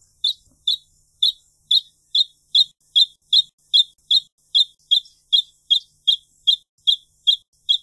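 A wrentit singing: one short note repeated about twenty times at an even pace of roughly two and a half notes a second, each note at the same pitch.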